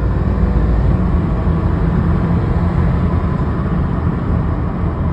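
Subaru Levorg running, a steady low rumble.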